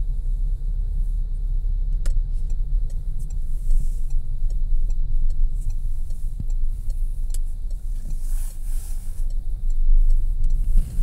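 Car cabin rumble while driving slowly on an iced-over road: a steady low drone of engine and tyres, with a couple of sharp clicks and a brief hiss about eight seconds in.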